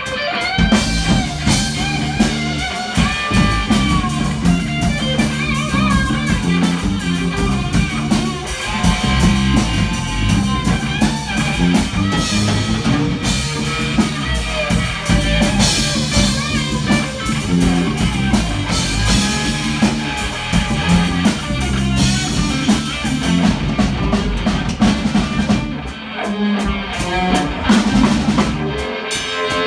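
A rock band playing live, with guitar and drum kit.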